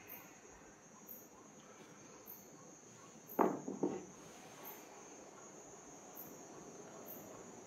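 Crickets chirping faintly: a short, very high chirp about once a second over a steady high trill. About three and a half seconds in, paper rustles briefly as a page is turned.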